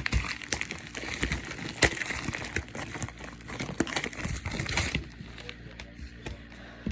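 Pokémon card packaging being torn open and crumpled by hand: a busy run of crinkling and crackling with sharp snaps, easing off to a few faint rustles after about five seconds.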